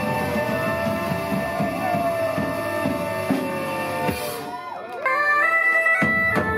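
Live folk band playing medieval-style music: fiddles and a plucked string instrument over drums, with a sliding held tone. After a short dip about four seconds in, bagpipes take up a stepped melody over the drums.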